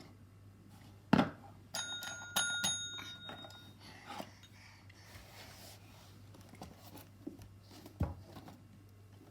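A thump, then a few quick metallic strikes that ring with clear high bell-like tones for about two seconds before fading, and another thump near the end.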